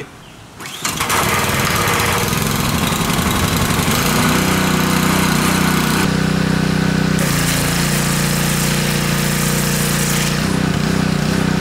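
Pressure washer starting up about a second in and running steadily, its 0-degree nozzle's straight jet hissing as it cuts into the dirt. The hiss of the spray falls away briefly about six seconds in and again near the end while the machine keeps running.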